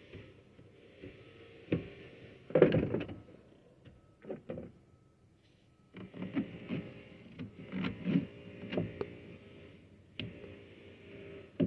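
Handling noises from a tractor's engine air filter and its plastic housing as the element is gripped and its paper pleats are rubbed by hand: scattered knocks, scrapes and rustles, most of them about a quarter of the way in and again past the middle.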